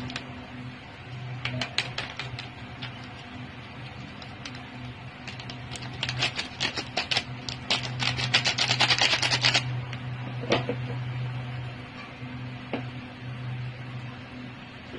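Plastic sachet of curry mix crinkling and being tapped as the powder is shaken out. A few crackles come early, then a dense flurry of rapid crackling about halfway through. A low hum runs underneath.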